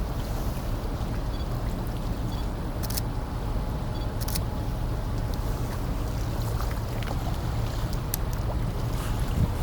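Steady low rumble of a car ferry's engines and the water around the hull as it comes into port, with a few sharp clicks about three and four seconds in.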